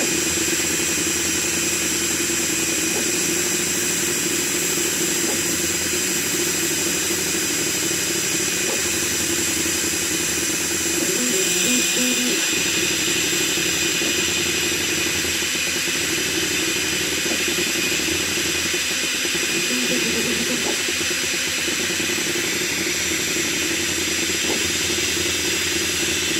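Diode laser engraving head on a CNC gantry, working wood: a steady hiss with high whining tones, under shifting lower tones from the machine's motors as the head traces the lines.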